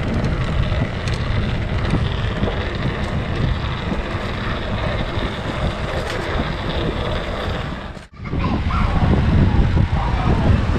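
Wind buffeting the camera microphone, a steady low rumble, with a sudden break about eight seconds in.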